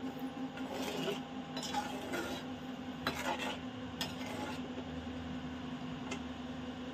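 Perforated steel skimmer stirring and scraping through thin gravy in an aluminium pan: a run of irregular scraping strokes for the first few seconds, with a couple of sharp metal clicks against the pan, over a steady low hum.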